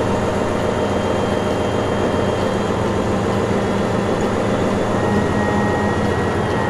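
Heavy crane truck's diesel engine running steadily, driving the hydraulics as the truck-mounted knuckle-boom crane unfolds its boom, with a faint high whine over the engine.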